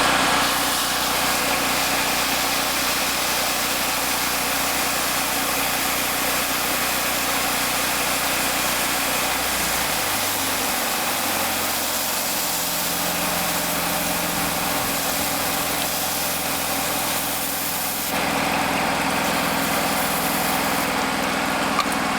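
An engine running steadily, its low note shifting to a different speed about ten seconds in.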